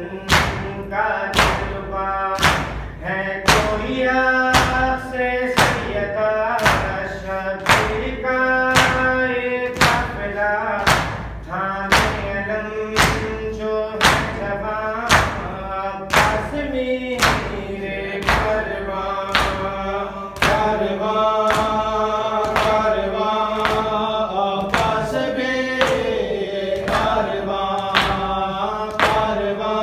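Male voice chanting a noha (Shia mourning lament) through a microphone, on long held notes. Hands strike chests in a steady beat of about three blows every two seconds: matam chest-beating keeping time with the lament.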